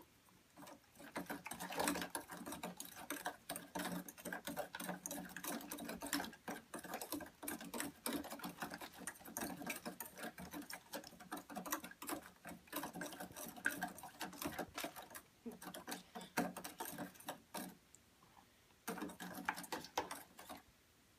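A plastic spoon stirring borax into water in a bowl, making fast, rapid clicking and scraping against the bowl. The stirring pauses briefly near the end, then starts again for a couple of seconds.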